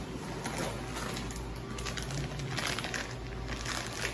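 Chewing, with crinkling of the paper under the food. A cluster of short rustles comes about two and a half seconds in.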